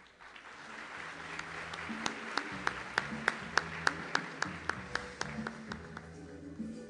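Audience applauding over stage music. The music has stepping bass notes and sharp regular hits about three a second through the middle, and the applause thins out near the end.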